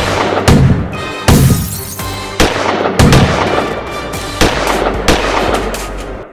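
Action-film soundtrack music with a steady low bass, hit by loud, sharp gunshot-like bangs about once a second, each dying away into a rumble.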